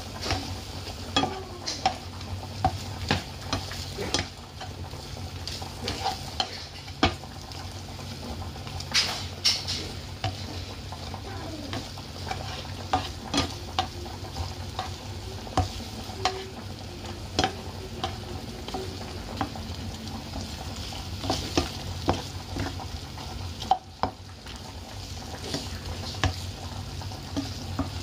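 Chicken wings sizzling in a honey-butter glaze in a pan as a spatula stirs and turns them through sesame seeds, with frequent irregular clicks and scrapes of the spatula against the pan. A steady low hum runs underneath.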